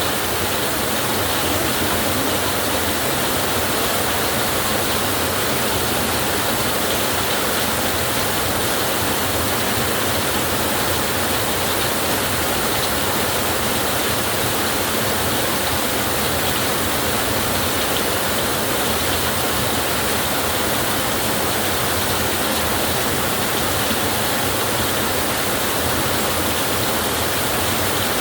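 Heavy rain falling steadily on a tin roof: a dense, even hiss that holds level throughout, with no thunder.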